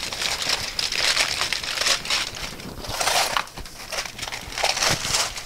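Aluminium foil crinkling and crumpling as hands pull it open from around a brisket, in uneven rustles and crackles.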